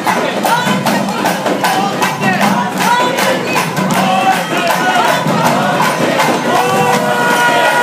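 Loud temple festival music: drums beating a quick, steady rhythm under many short pitched sounds that rise and fall, with a crowd behind.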